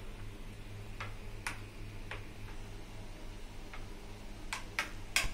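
A spoon stirring thin gram-flour batter in a bowl, its tip knocking against the bowl now and then: a handful of light, unevenly spaced clicks.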